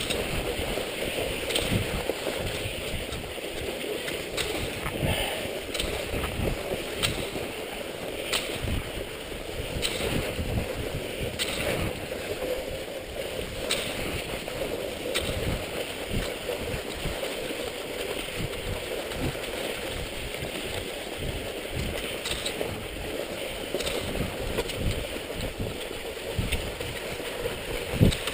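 Cross-country skis gliding on a groomed snow track with a steady hiss and rumble, while ski poles plant in the snow every second or two, each a short click.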